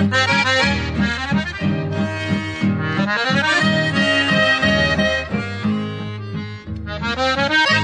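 Background music: a lively accordion-led tune over a bouncing, regular bass line.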